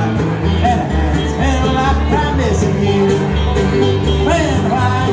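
Live bluegrass-style acoustic band playing: upright bass, mandolin, acoustic guitar and banjo, with a sung vocal line.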